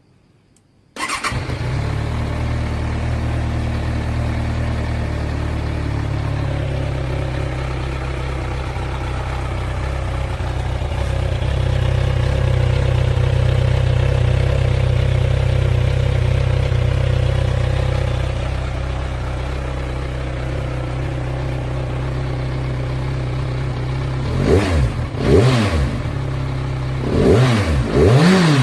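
Kawasaki Z1000 inline-four motorcycle engine starting about a second in and idling steadily, then given a few quick revs near the end.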